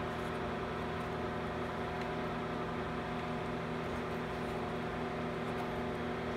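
Steady mechanical hum with several fixed tones over a low hiss, unchanging throughout.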